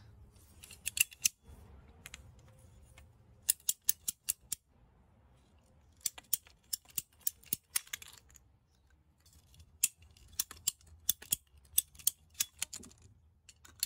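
Handheld PVC pipe cutter clicking as its handles are squeezed to cut through a 3/8-inch (3分) grey PVC water pipe. The clicks come in several runs of quick, sharp clicks with short pauses between them.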